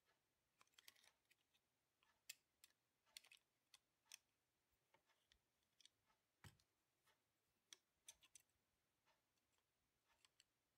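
Faint, irregular small clicks and scrapes of a thin screwdriver tip working against the brass contacts and plastic housing of a disassembled Daewoo Nexia headlight stalk switch, with one slightly louder click about six and a half seconds in.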